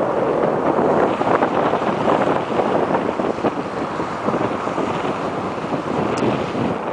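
Strong wind blowing across the microphone, a steady rough rush that rises and falls with the gusts, over choppy waves.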